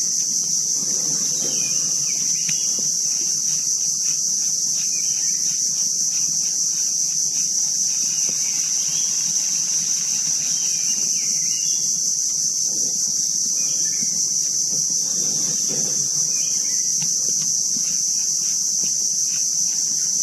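Steady high-pitched insect chorus droning without a break, with faint bird chirps now and then.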